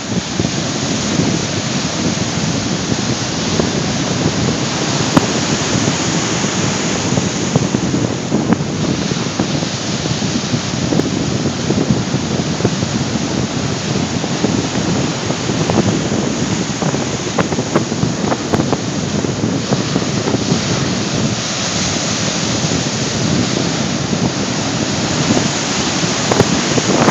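Rough ocean surf breaking and churning continuously, raised by a distant hurricane, with strong wind buffeting the microphone in frequent crackles.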